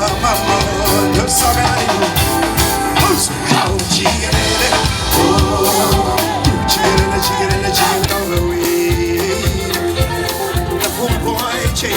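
Background music with a steady beat and singing.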